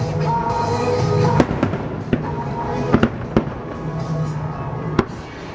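Aerial fireworks bursting: a run of sharp bangs, several close together about one and a half to three and a half seconds in and another near the end. Music with held notes plays underneath.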